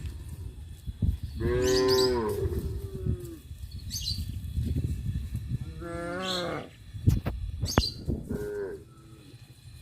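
Cows mooing three times: a long moo about a second and a half in that drops in pitch at its end, a shorter one around six seconds, and a brief one near the end. A couple of sharp knocks and faint bird chirps fall between the calls.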